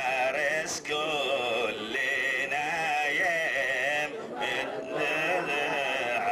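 Male voice chanting Jewish liturgy from a Hebrew prayer book, a continuous wavering melodic line without pause.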